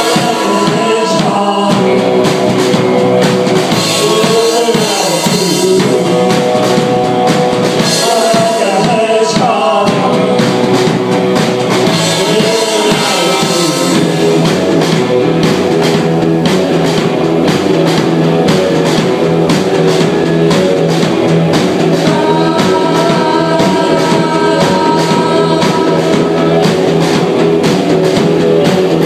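Live rock band playing: electric guitars, bass and drum kit, with a sung vocal over the first half that gives way to instrumental playing.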